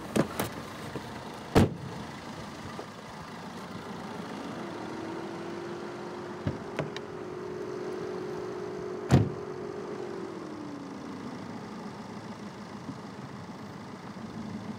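Car doors shutting: sharp thumps about a second and a half and about nine seconds in, with lighter clicks of handles and latches around them. Under them a steady hum starts about four seconds in, rises a little in pitch, and falls away around eleven seconds.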